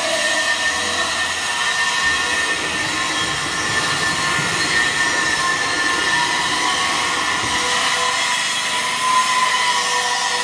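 The double electric vibrator motors of a heavy-duty concrete block making machine running, shaking the steel mould to compact the concrete mix. The result is a steady, harsh metallic rattle with a high whine over it.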